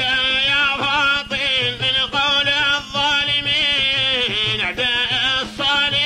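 Traditional Arabic qasida (sung poem) in Middle Eastern style. An ornamented melody with wavering pitch runs in short phrases with brief breaks, over a steady low hum.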